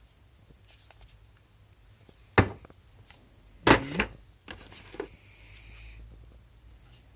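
Hard plastic clicks and knocks from a small 3.6 V cordless-tool battery pack being handled: a sharp click about two and a half seconds in, a louder knock with a brief squeaky scrape about a second later, then two lighter knocks.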